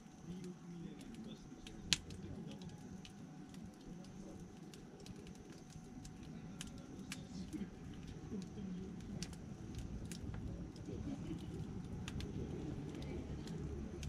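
Wood fire crackling, with scattered small pops and one sharp, loud snap about two seconds in.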